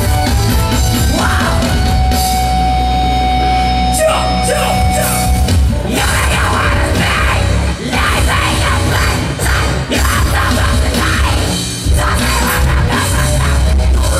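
Deathcore band playing live: distorted electric guitars over a drum kit, with a long held note about two seconds in and a few short stops in the second half.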